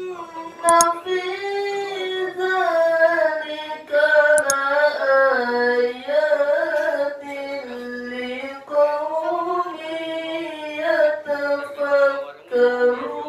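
A qari's voice in melodic Quran recitation into a handheld microphone: long, high, held notes with wavering ornaments, broken by short breath pauses. Two brief clicks come about a second in and again near the middle.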